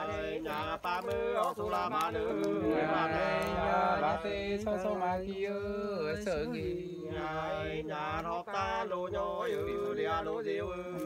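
Unaccompanied Nùng sli folk singing: a man's voice holding long notes that slide and waver between pitches, in a chant-like line.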